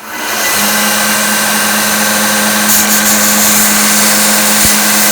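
A Bucktool 1x30 bench belt sander's 1/3 HP direct-drive motor switches on with a click, spins up within about half a second and runs with a steady hum. Near the middle a rusty steel screwdriver is pressed against the running medium-grit belt, adding a harsh grinding hiss.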